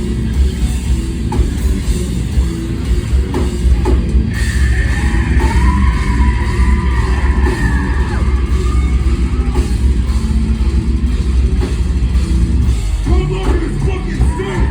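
Heavy, loud hardcore/metal band music with pounding drums. A high held note rides over it from about four seconds in until about nine and a half seconds.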